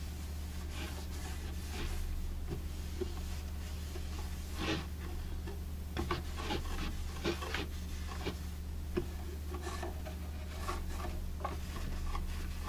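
A cloth rubbing in irregular strokes over the wooden veneer of a radio cabinet, wiping on a paste wax. The strokes come thickest about halfway through. A steady low electrical hum runs underneath.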